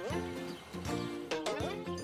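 Upbeat cartoon background music with held notes and rising sliding tones that repeat about every second and a half, with a few sharp hits.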